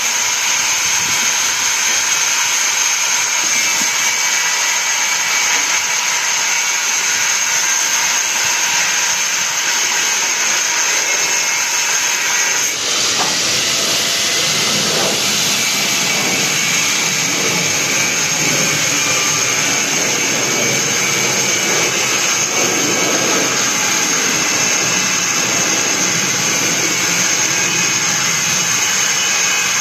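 Steady, loud machine noise with a high hiss running through it, from powered equipment at work. About thirteen seconds in the sound shifts, taking on a rougher, fuller texture lower down.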